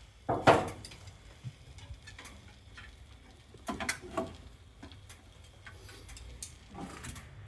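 Tableware being handled while food is served: a few sharp knocks and clinks of dishes and utensils, the loudest about half a second in, two more around four seconds and another near the end.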